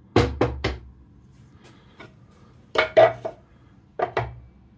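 Sharp knocks and clatter of a metal lathe gear and a plywood board being set down and moved on the lathe bed: three quick knocks at the start, then two more pairs about three and four seconds in.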